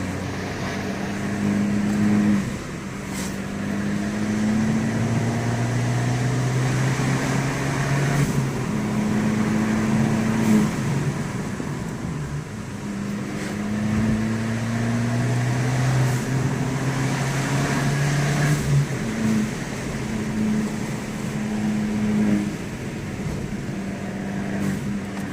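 Abarth 595 Pista's 1.4-litre turbocharged four-cylinder engine accelerating, its revs climbing and then dropping back several times as it shifts or lifts between pulls.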